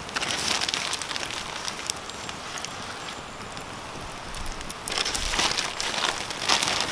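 Catfish fillets sizzling as they are dropped into hot browned butter and canola oil in a cast-iron pot. The sizzle surges as a fillet goes in right at the start and again about five seconds in, over a steady lower frying hiss.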